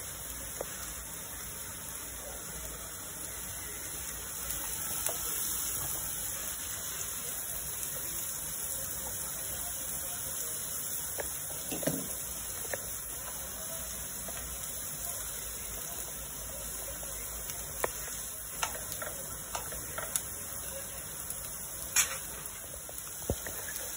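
Mixed vegetables frying in a kadai with a steady hiss. A wooden spatula clicks and scrapes against the pan now and then, loudest near the end.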